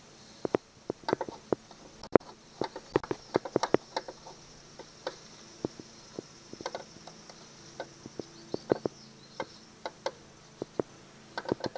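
Scattered sharp clicks and light metal taps, irregular and a few to the second, as the crankshaft end and collar under a Honda lawnmower deck are handled and turned by hand.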